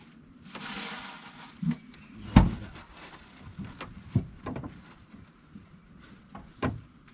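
Scattered knocks and thuds of gear being handled in a small boat, the loudest about two and a half seconds in, with a brief rushing hiss about half a second in.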